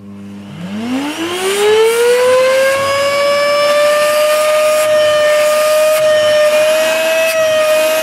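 Hoover Dustmanager 2200 W bagless upright vacuum cleaner switched on: its motor spins up with a whine that rises steeply in pitch over the first two seconds or so, then runs steadily at full speed. The owner says it sounds awful and presumes the motor fan is caked in dirt.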